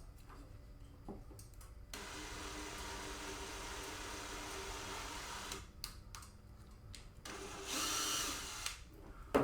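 Power drill running steadily for about three and a half seconds, boring a starter hole the rest of the way through, followed by a few clicks and a second, shorter and louder burst of drilling.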